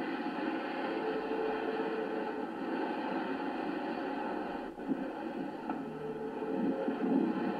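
Steady rush of wind and sea noise on a sailing ship's deck, dipping briefly about five seconds in.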